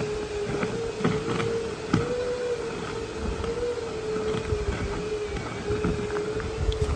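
Electric vehicle winch whining steadily under load as it drags a cut red oak trunk, its pitch wavering slightly, with a few knocks along the way. The whine stops near the end.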